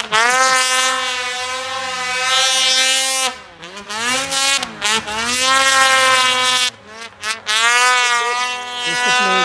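Ski-Doo Summit 850 two-stroke snowmobile engine run wide open in three pulls. Each time the pitch climbs fast and then holds high; the throttle snaps off about three seconds in and again near seven seconds, with a couple of quick blips in between.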